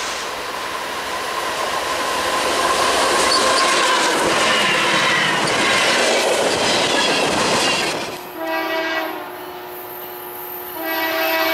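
CSX freight train passing close, its boxcars rumbling with wheels clattering and a thin squeal on the rails. After a sudden change about eight seconds in, a distant locomotive horn sounds two blasts of several tones together, the second near the end.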